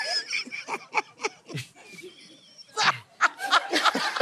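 People laughing hard in short, uneven breaths, with a high, wavering laugh about two seconds in.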